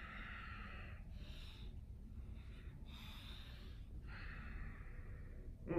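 A man breathing slowly and deeply while holding a yoga stretch: a series of long inhales and exhales of about a second each, over a low steady room hum. Near the end there is a brief vocal sound, falling in pitch.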